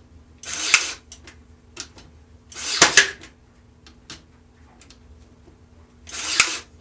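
Pin nailer firing three times, about every two and a half to three seconds; each shot is a short burst of hiss with a sharp snap. The gun is misfiring, possibly from a low battery.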